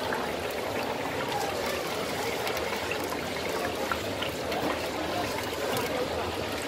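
Hot oil in a wok sizzling steadily as Teochew meat puffs deep-fry, with small crackles and pops throughout.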